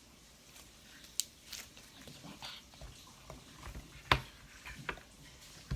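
Slime being squeezed and stretched by hand, giving irregular sticky clicks and small wet pops, the sharpest about a second in and about four seconds in.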